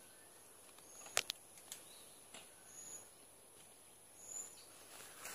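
Faint outdoor background: a few short, high bird chirps and a thin, steady high whine. Several sharp clicks come about a second in, the loudest of them a close double click.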